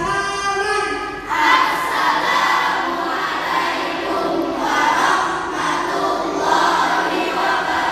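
A group of schoolchildren's voices sounding together loudly, choir-like, coming in about a second in after a single held pitched tone.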